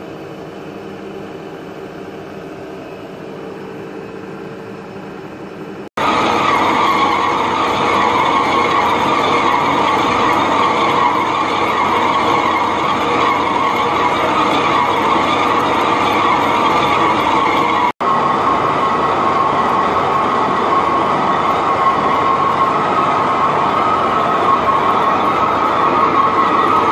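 Dean Smith and Grace Type 21 lathe turning a grade 5 titanium bar. It starts as a quieter steady running hum. About six seconds in it becomes loud, steady cutting noise with a high whine as the tool works along the bar.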